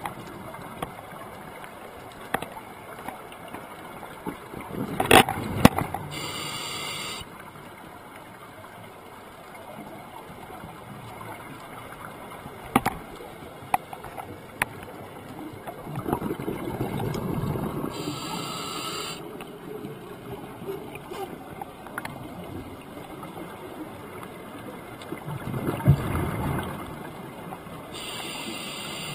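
Scuba regulator breathing heard underwater through a camera's waterproof housing: three breaths about ten seconds apart, each a rumble of exhaled bubbles followed by a short hissing inhale, with a few small clicks in between.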